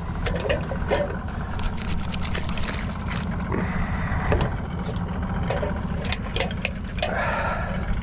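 A small boat's outboard motor idling with a steady low rumble, under scattered clicks and knocks of gear being handled on board, with faint voices now and then.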